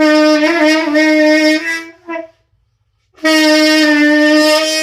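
Alto saxophone played in long held notes: one note held for nearly two seconds, a short note, then after a brief pause another long held note.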